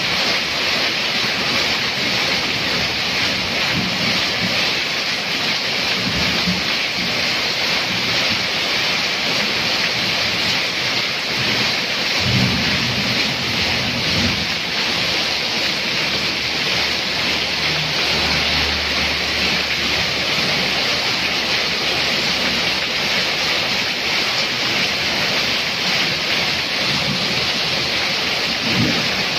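Heavy rain pouring down steadily in a downpour, with water running off a roof edge. Low rumbles come and go, the strongest about twelve seconds in.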